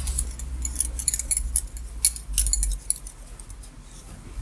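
Double-pointed knitting needles clicking and clinking against each other as a glove in progress is handled and pulled onto the hand, with a low rumble of handling. The clicks come thick in the first three seconds, then thin out.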